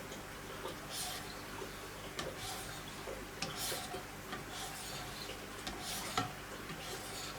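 Diamond stones of a Wicked Edge guided sharpener scraping along a fixed-blade knife edge in slow strokes about a second or so apart, with light clicks between strokes.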